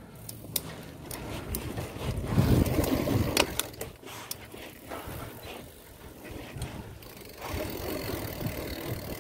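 Mountain bike riding over a bumpy dirt track, heard from the handlebar: tyres rolling on dirt, the bike rattling with scattered clicks and knocks, and wind buffeting the microphone. It is heaviest as a low rumble about two to three seconds in.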